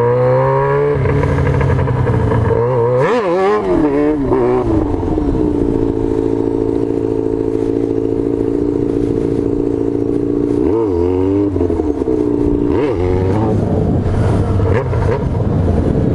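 Yamaha XJ6's 600 cc inline-four engine revving hard during a wheelie. Its pitch climbs over the first second, wavers about three seconds in, then holds steady at high revs for about five seconds before dropping and picking up again near the end.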